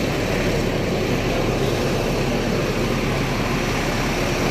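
Steady, even drone of idling bus engines and street traffic.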